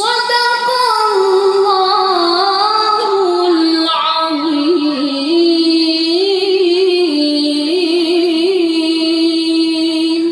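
A qari's voice reciting the Quran melodically: one long, ornamented phrase held for about ten seconds, starting high, gliding down and wavering in pitch, then cutting off.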